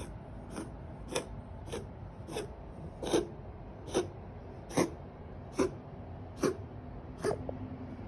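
A cat coughing in a long, regular run of short hacks, about ten of them, a little under a second apart.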